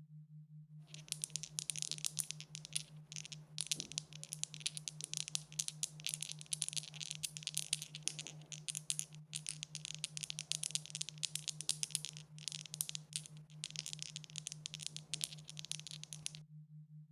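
Dice rattling, shaken continuously in fast, dense clicks for about fifteen seconds with a few brief pauses, starting about a second in and stopping shortly before the end, over a faint steady low hum.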